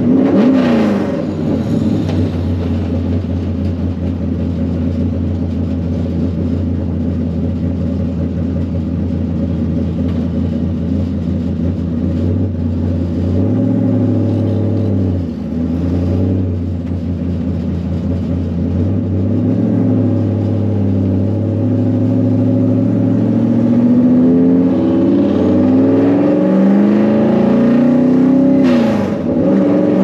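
Vehicle engine running steadily on the road, its pitch dipping briefly several times and climbing gradually over the last third.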